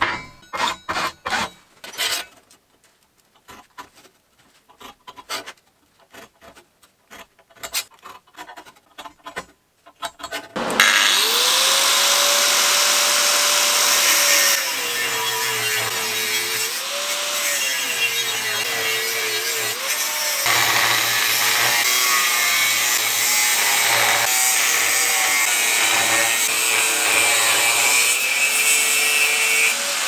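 Scattered light clicks and knocks, then about a third of the way in an angle grinder with a cutting disc starts up and cuts into thick steel plate. Its motor whine sags and wavers as the disc bites into the metal.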